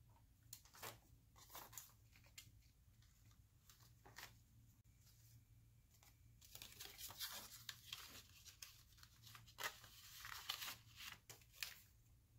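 Paper rustling as a greeting card is handled and slid into a paper envelope, and the envelope flap is worked. A few light taps come first, then denser, louder rustling from about halfway through.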